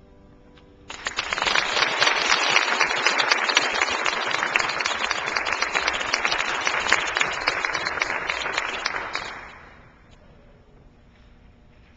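Audience applauding, starting about a second in just as the last piano chord dies away, lasting about eight seconds and fading out near the end.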